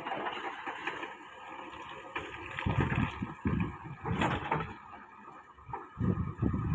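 JCB 3DX backhoe loader's diesel engine running under load as the backhoe bucket pushes and scrapes through rocks and earth, surging louder twice, with a sharp knock a little over four seconds in.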